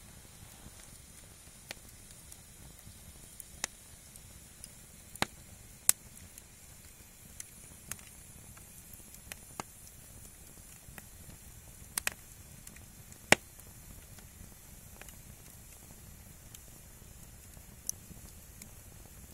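Firewood burning, crackling with about a dozen irregular sharp pops, the loudest about two-thirds through, over a low steady noise.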